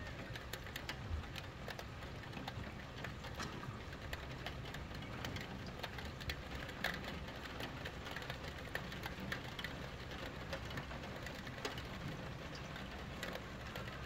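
Rain falling, with irregular ticks and taps of drops striking a Velux roof window over a steady hiss of rain.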